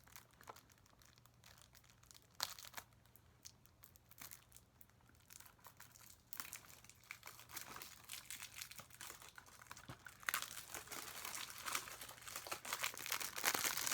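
Plastic wrapping crinkling and tearing as it is pulled off a Blu-ray case. A few faint clicks at first, then steady crinkling from about six seconds in that grows louder near the end.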